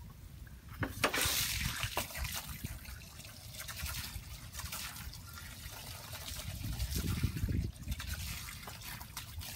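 Garden hose spraying water against vinyl house siding, the water splashing and trickling down onto the pavement as the siding is rinsed.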